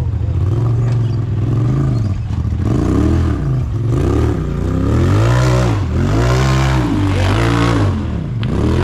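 UTV (side-by-side) engine revving hard in repeated rises and falls, about once a second, as the throttle is worked on and off while it climbs a rocky hill course.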